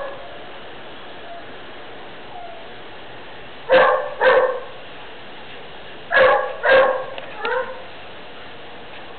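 Dogs barking at play: two loud barks about four seconds in, two more a couple of seconds later, then a short, quieter call.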